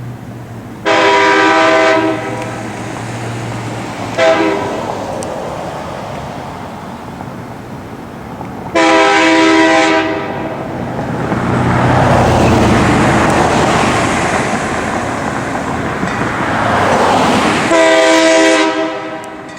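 Nathan K3HA three-chime train horn sounding four times: a blast of about a second, a short toot, another second-long blast, and a last blast near the end. Between the last two, a rush of noise swells and fades over several seconds.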